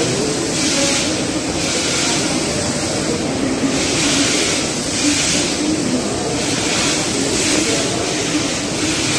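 Steady production-line machinery noise in a solar panel factory, with short bursts of hiss repeating roughly once a second over a low murmur.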